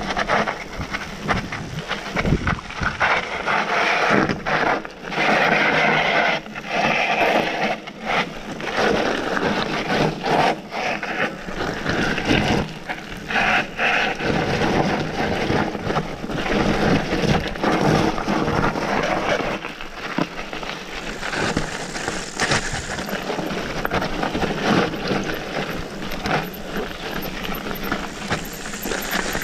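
Mountain bike descending fast over loose gravel and rocks: tyres crunching on stones and the bike rattling over a constant run of bumps and knocks.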